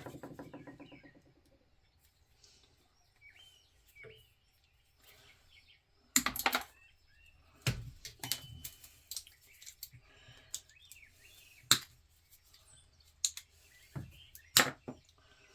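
Scrap ceiling-fan parts being handled and tossed into a bin: a rattle that dies away in the first second or so, then scattered metallic clanks and knocks from about six seconds in. Faint bird chirps come between them.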